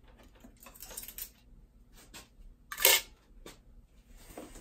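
Small clicks and rustles of hands working plastic clips and parts at a motorcycle's airbox and intake boot, with one brief louder rustling clatter about three seconds in.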